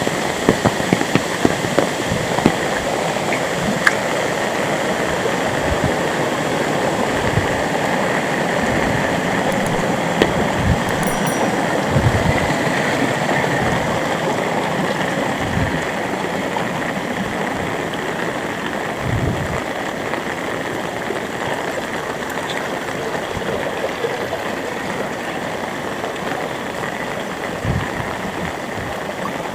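Heavy rain pouring steadily as a dense, even hiss, with occasional short low thuds.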